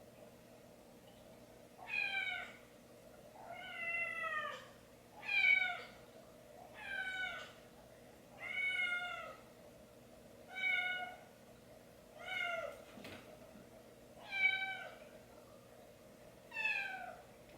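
A cat meowing repeatedly: nine separate calls, each about half a second to a second long, roughly every two seconds, each dropping in pitch at its end.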